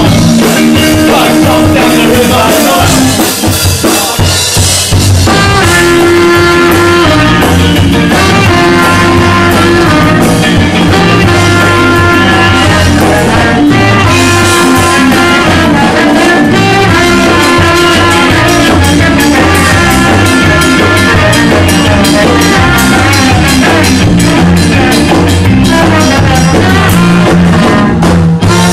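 Live ska band playing very loud, with a drum kit and brass horns including a trombone.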